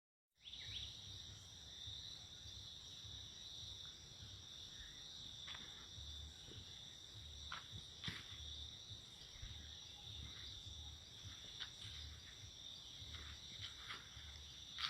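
Faint, steady chorus of crickets and other insects: a continuous high trill, with a few scattered sharp clicks.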